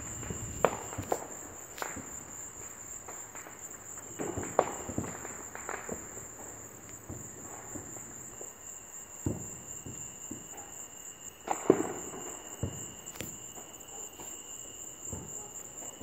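Crickets chirping steadily, with a scattered series of sharp, distant firework bangs, the loudest about twelve seconds in.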